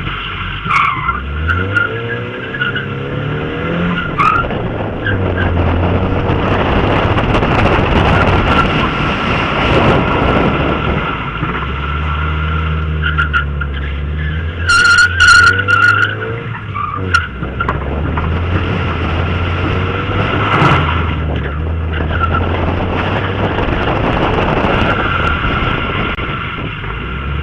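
Mazda MX-5 Miata drifting: the engine revs up and down over and over while the tyres squeal and skid steadily, with a brief run of sharp cracks about halfway through.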